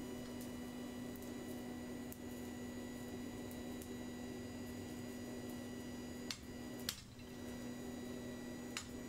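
Steady electrical hum in a workshop, with a few light clicks about six and seven seconds in and again near the end. There are no hammer blows.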